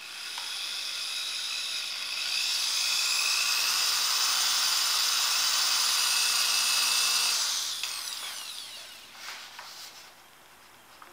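Corded electric drill with a 3/16 inch bit running and boring a pilot hole through a cheek-rest drill bushing into a rifle stock. Its steady motor whine gets louder about two seconds in, then winds down with a falling pitch near the end.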